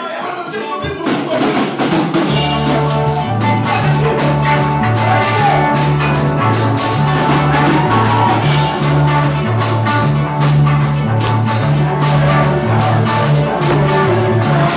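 Music with drums and a bass line; the bass comes in about two seconds in and moves between notes in a steady rhythm.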